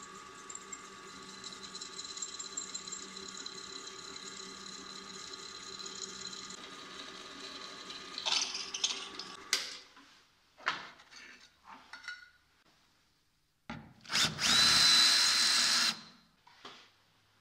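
Bench drill press motor running steadily, then a few short bursts as the twist bit cuts into a stainless steel plate held in a machine vise. Near the end, a cordless drill with a step bit cuts through a thin stainless sheet for about two seconds, the loudest sound here.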